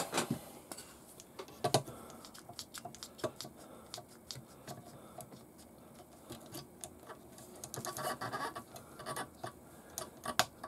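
Scattered light clicks and taps of small plastic parts being handled, with a denser run of quick clicks near the end as a small one-hand bar clamp is set and squeezed onto a plastic RC suspension bracket.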